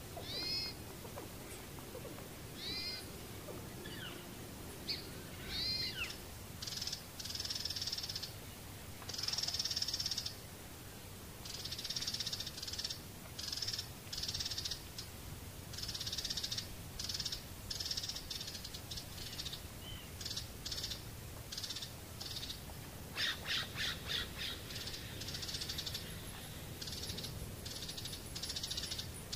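Birds calling: a few high arching calls, then a run of short raspy chattering calls about once a second, with a harsher pulsing burst of calls about two-thirds of the way through.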